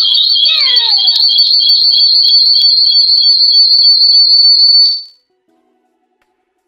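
Loud, piercing high-pitched electronic tone that warbles rapidly back and forth between two pitches, then cuts off suddenly about five seconds in. A lower sliding sound falls in pitch beneath it in the first second or so.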